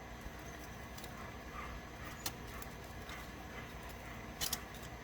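A few faint clicks and taps from tools handling a monitor circuit board, over a low steady hum: one near the middle and a quick pair near the end.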